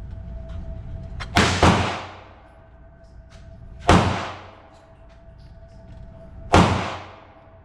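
Four Glock pistol shots, each trailing off in a long echo: two in quick succession about a second and a half in, then single shots about two and a half seconds apart.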